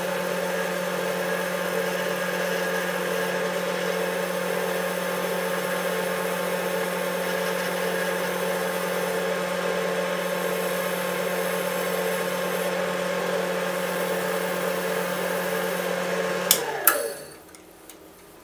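Wood lathe running at a steady speed with a constant motor hum and whine. It is switched off about sixteen and a half seconds in with a click, and its pitch falls as it spins down.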